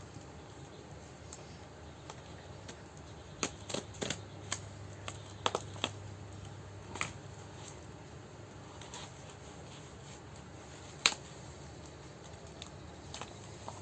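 Packaging being handled and opened: scattered clicks, taps and light rustles, a cluster of them about a third of the way in and one sharp click later on.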